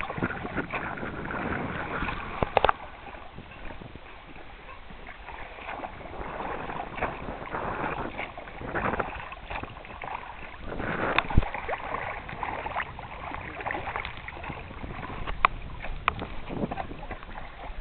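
Oars of an inflatable rowing boat pulling through river water, a swishing and splashing that swells and fades in uneven strokes every second or two, with a few sharp knocks along the way.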